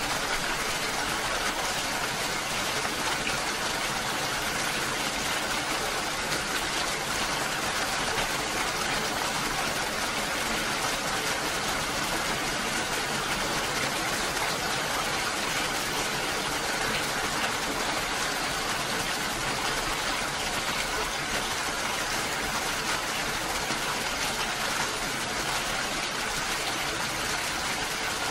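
Steady rain falling, an even rush of noise that does not change.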